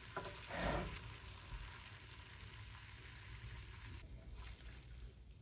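Faint sizzling from a pan of white wine lemon garlic chicken and angel hair pasta, with a brief louder sound about half a second in; the sizzle cuts off suddenly about four seconds in.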